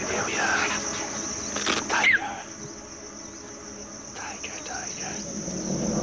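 Steady high-pitched drone of insects in grassland. A brief louder sound with a short rising chirp comes about two seconds in.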